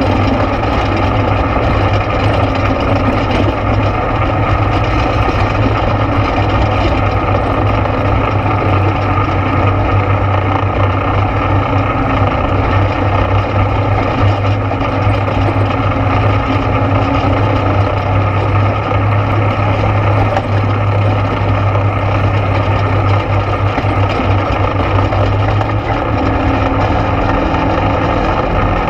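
ATV engine running steadily under way, with a constant low drone and a dense mechanical rumble that barely changes in level.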